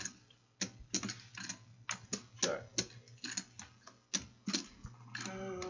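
Irregular sharp clicks, two or three a second, over a low steady hum.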